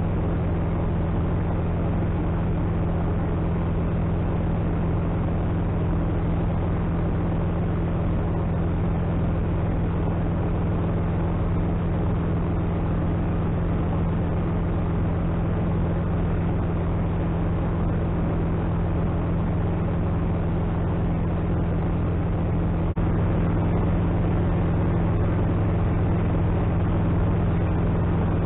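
Atec Zephyr ultralight's engine and propeller droning steadily in flight, heard from inside the cockpit. It gets slightly louder about two-thirds of the way through.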